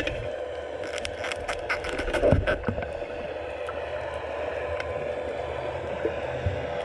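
Underwater sound picked up by a GoPro in its housing on the sandy bottom: a muffled low rumble and a steady hum, with a flurry of sharp clicks and crackles between about one and three seconds in as kicked-up sand and silt wash over the camera.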